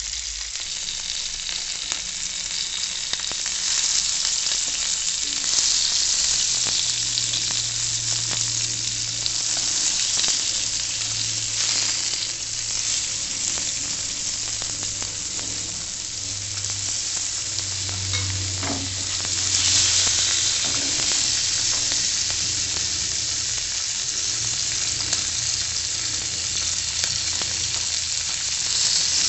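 Pieces of snakehead (shol) fish sizzling as they shallow-fry in oil in a nonstick pan, the hiss swelling louder at times. A wooden spatula scrapes and taps the pan as the pieces are turned over.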